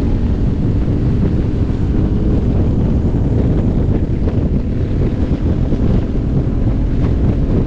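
Steady wind buffeting on a helmet-mounted camera's microphone at riding speed, with the motorcycle's engine running underneath.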